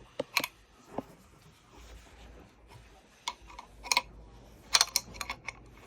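Scattered sharp clicks and light knocks of small hard objects being handled: a couple near the start, one about a second in, then a few about three to four seconds in and a quick cluster near the end.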